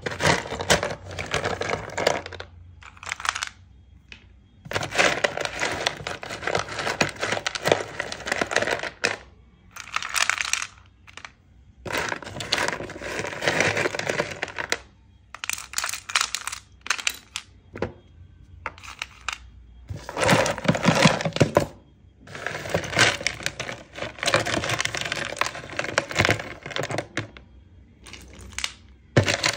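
Broken slate pencil sticks clattering against each other and the plastic storage box as handfuls are scooped up, in repeated rattling bursts with short pauses between them.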